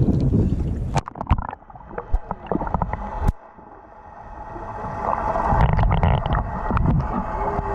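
Wind and water noise aboard a small boat, with scattered knocks and clicks. The rushing sound drops away suddenly about a second in, goes quiet for a moment around the middle, then builds back up.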